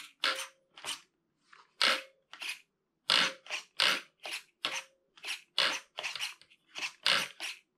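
Steering servo of a 1/16-scale RC car whirring in short, rapid bursts, two or three a second, as the steering is swung left and right from the transmitter. The steering is being checked for throw: it turns better to the left than to the right.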